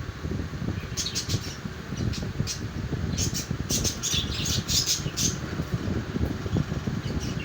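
Budgerigars chirping and squawking in short, quick notes: a few about a second in, then a busy cluster from about three to five seconds. A steady low rumble runs underneath.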